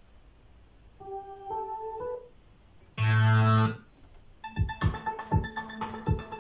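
Synthesizer music from a Clavia Nord Wave 2 and a Korg Pa 700 keyboard: a short phrase of notes stepping upward, then a loud, bright chord stab lasting under a second. About four and a half seconds in, a rhythmic electronic beat with sharp hits starts under held synth tones.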